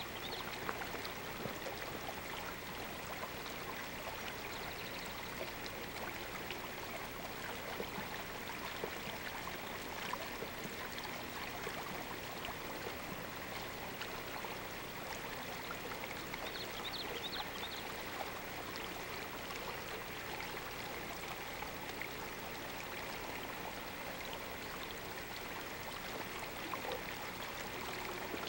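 Steady rushing hiss of open-air ambience, with a few faint high chirps scattered through it.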